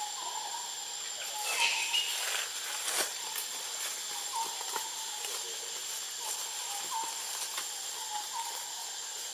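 Outdoor ambience: a steady high hiss with a thin steady high tone, overlaid by short faint animal chirps every second or so. A louder rustling burst comes about a second and a half in, and a sharp click at about three seconds.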